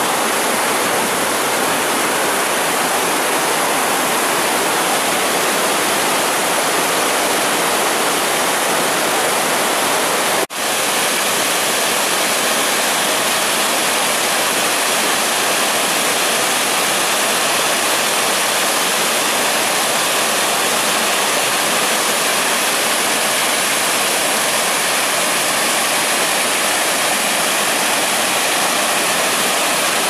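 Waterfall on a rocky mountain stream, water pouring over boulders into a foaming pool in a steady, loud rush. The sound breaks off for an instant about ten seconds in.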